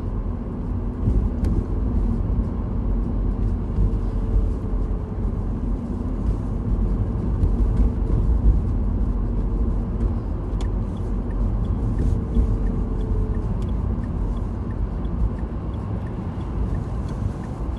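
Car driving slowly, heard from inside the cabin: a steady low engine and road rumble, with a faint whine for several seconds in the middle and a light, regular ticking in the second half.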